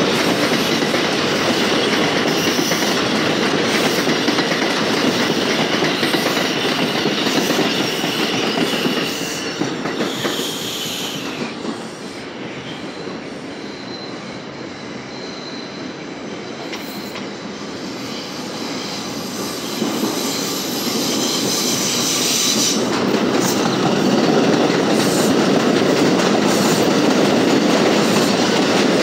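Bombardier R142 subway trains passing close by, a loud steady running noise of wheels on rail with a thin, high wheel squeal during the first train. The noise falls away about ten seconds in, then builds again from about twenty seconds as the next train comes past.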